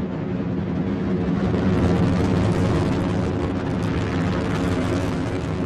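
Delta IV Heavy rocket's three RS-68A engines firing at full thrust during ascent: a steady, dense low rumble with crackle, growing a little louder about a second and a half in.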